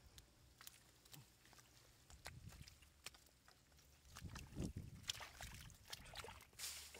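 Faint squelching and slapping of wet mud and shallow muddy water, with scattered small clicks, as hands work in a muddy rice paddy where fish lie on the mud. A louder spell of wet squelching comes about four to five seconds in.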